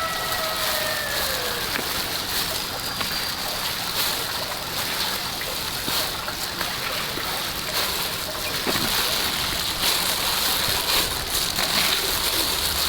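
Water splashing and sloshing with scattered small knocks. A chicken's call trails off, falling in pitch, in the first second or two.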